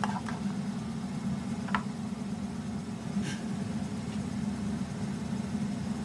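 A steady low hum with three faint short ticks in the first half.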